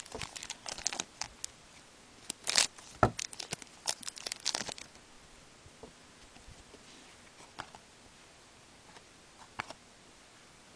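Plastic wrapper of a hockey card pack being torn open and crackling in the hands, a dense run of sharp crackles lasting about five seconds. After that, only a few faint ticks as the cards are handled.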